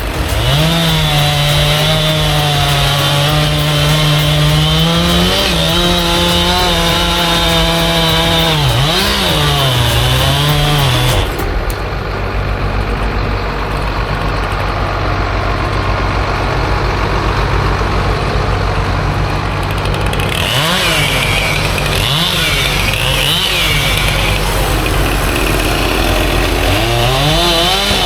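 Gas chainsaw running at high revs while cutting, its pitch dipping briefly and recovering. It eases off about a third of the way in and revs up again near the end.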